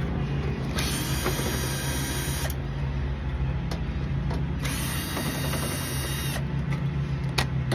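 Cordless drill backing screws out of an air conditioner's sheet-metal casing: two runs of about a second and a half each, with a few light clicks between them, over a steady low hum.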